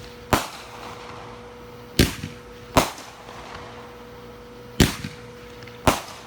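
Fireworks going off: five sharp bangs at uneven spacing, one to two seconds apart.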